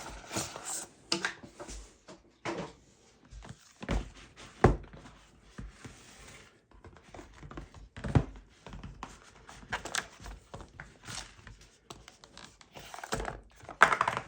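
Irregular knocks, taps and rustles of packaging being handled while someone rummages through a box of small packs. There are sharper knocks at a few points, the loudest near the end.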